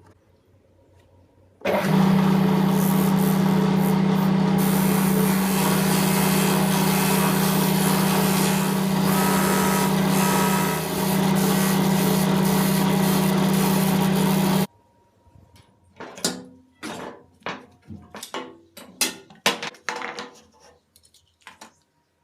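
Electric power tool switched on, running steadily at one speed for about thirteen seconds with a strong hum and a hiss, then stopping abruptly; several short knocks and clicks of tools or parts being handled follow.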